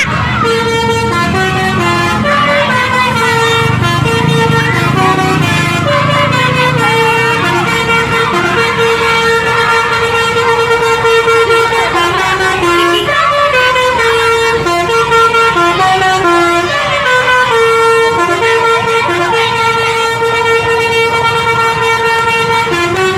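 Tour bus telolet horn, a multi-tone musical air horn, playing a long run of stepped notes as a tune, with the bus's engine running underneath.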